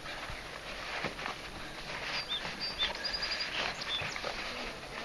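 A small bird chirping in short high notes, among them a quick run of several, from about two to four seconds in, over faint rustling and light knocks of the float tube's nylon fabric being handled.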